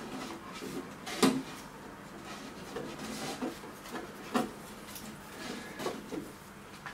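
Handling noises as a flexible LED strip is worked around the edge of an aluminium light box. There is one sharp knock about a second in, a soft rustle a little before the middle, and a few lighter knocks and clicks after it.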